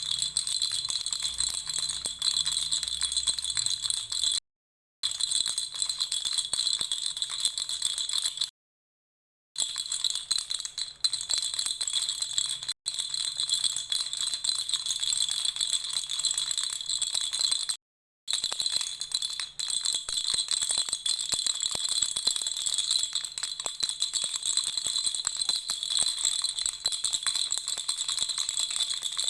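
Lollipop-shaped baby rattle shaken steadily: a fast, dense jingling rattle with a high bell-like ring. It is broken three times by brief gaps of dead silence.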